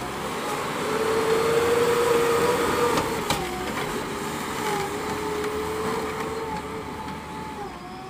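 JCB backhoe loader's diesel engine working hard as the front bucket pushes loose sand. The engine note climbs about a second in, dips briefly a little after three seconds with a single sharp click, then runs on steadily.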